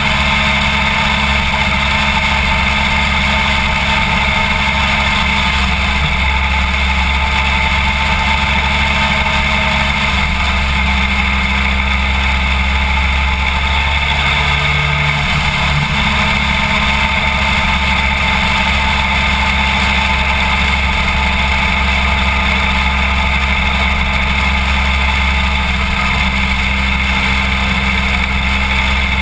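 BMW F800GS's parallel-twin engine running at a steady highway cruise, with wind and road noise, heard from a camera mounted low on the side of the bike.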